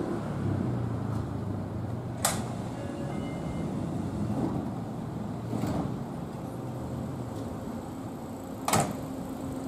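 Seibu 6000 series electric train standing at the platform with a steady low hum, broken by two sharp knocks, one about two seconds in and a louder one near the end.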